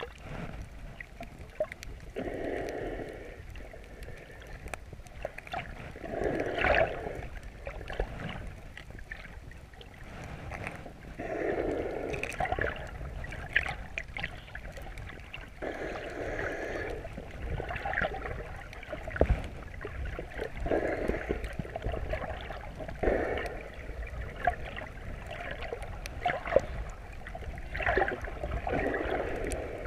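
Muffled water sloshing and gurgling around a GoPro's waterproof housing just under the surface while snorkelling, with a surge every four or five seconds.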